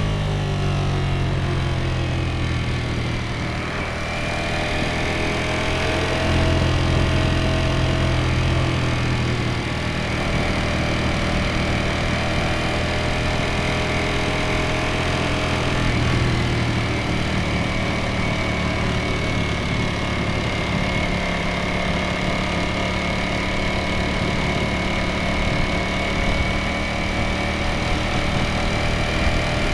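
Ducati Streetfighter V4S's 1103 cc V4 engine and exhaust running under way, its pitch dropping as the revs ease off at the start, then holding a fairly steady note at cruising revs.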